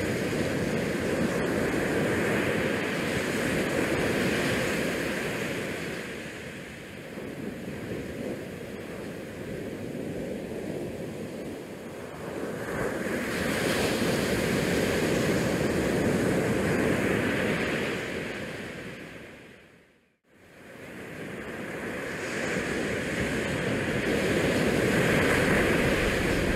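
Wind rushing over the camera's microphone on an open ship deck at sea, swelling and easing in gusts. It fades out briefly about two-thirds of the way through and comes back.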